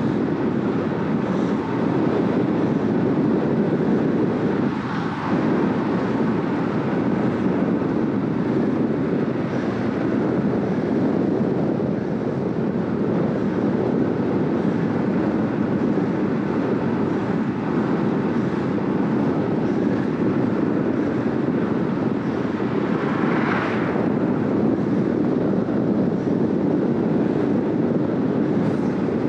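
Steady rushing wind noise on the microphone of a road bike travelling at about 45 km/h in a time-trial effort.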